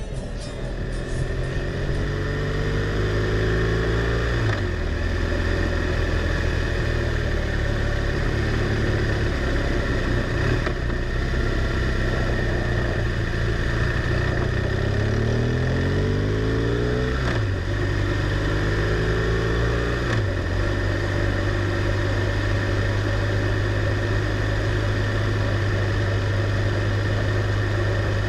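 BMW R1200R LC's boxer-twin engine running on the move, heard from on board over a steady rushing noise. The engine note climbs and falls with throttle and gear changes: it rises steadily about fifteen seconds in, then drops sharply on a shift. It holds at an even note for the last several seconds.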